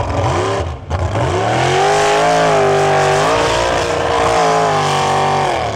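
Lifted mud-bog pickup truck's engine revving hard through the bog: the pitch climbs and is held high, dips briefly midway, climbs again and falls off near the end.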